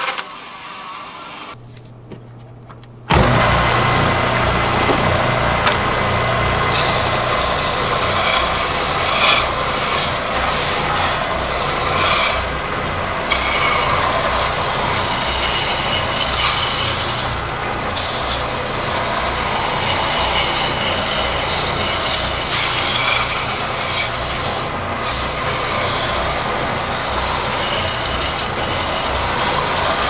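Benchtop oscillating edge-belt sander running, its motor humming; about three seconds in the sound jumps to loud, steady sanding noise as the edge of a thin wooden panel is pressed against the belt, with a few brief dips as the piece is moved.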